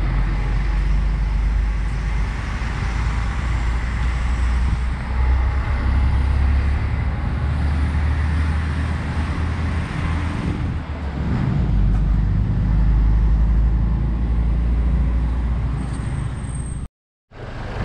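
A motor vehicle's engine running with a heavy low rumble, rising and easing a little, that stops abruptly near the end.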